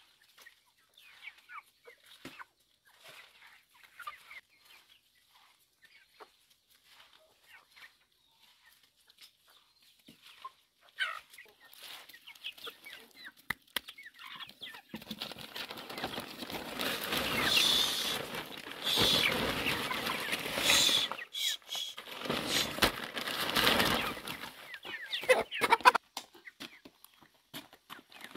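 Chickens clucking quietly and pecking at a pile of shredded banana stalk. About halfway through, a loud rustling starts as the shredded stalk is stirred and tossed by hand, running in two long stretches with a short break between them.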